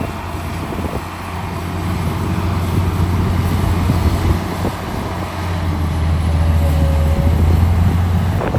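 Heavy diesel engine of earthmoving equipment working under load. Its low drone grows louder over the first few seconds, eases briefly about halfway, then climbs again.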